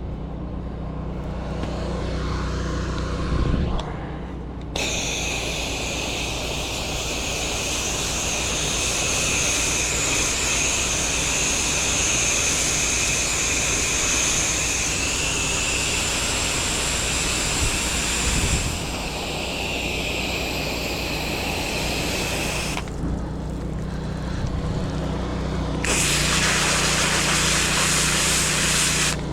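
Pressure washer running with a steady motor hum, its high-pressure spray hissing loudly from about five seconds in to about eighteen seconds, then stopping briefly and starting again near the end.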